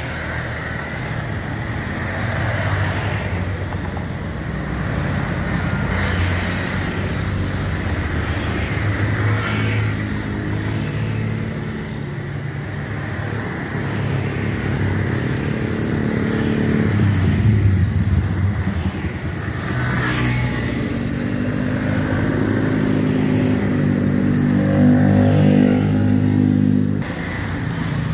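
Airbus A321-231's IAE V2500 jet engines running at low taxi thrust, a steady hum and whine whose pitch shifts slowly, with an abrupt drop near the end.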